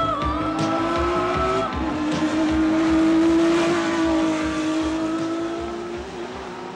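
Racing car engine at high revs, growing loudest about three seconds in and then fading as the car draws away, over electronic music with a steady beat.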